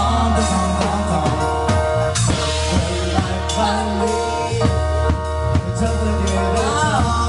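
Live band playing up-tempo dance music, a keyboard over a steady beat.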